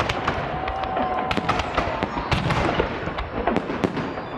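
Fireworks salute going off: a rapid, irregular run of sharp bangs and crackles, several each second.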